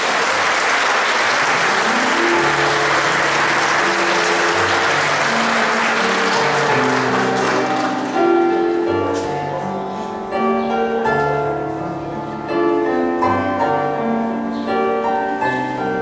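Audience applauding, the clapping dying away about halfway through, over instrumental background music with slow, held notes that carries on alone afterwards.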